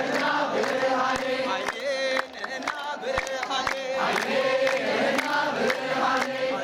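Crowd of Ethiopian Orthodox worshippers chanting a hymn together in long held notes, with short sharp clicks scattered throughout.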